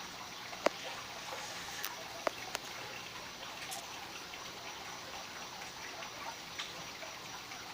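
Faint steady hiss with a few sharp small clicks in the first four seconds, from electrical wires being handled and twisted together with long-nose pliers for a splice.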